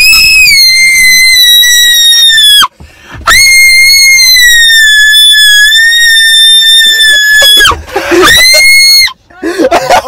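A person screaming at full volume in a very high, nearly steady pitch inside a car, three times: a long scream that breaks off about two and a half seconds in, a longer one from about three to nearly eight seconds, and a short one near the end.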